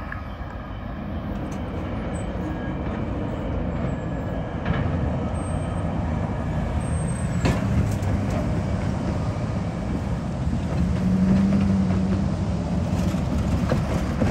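Cars and a pickup truck driving past close by over a railroad grade crossing, engine and tyre noise building as they approach, with a few sharp knocks along the way.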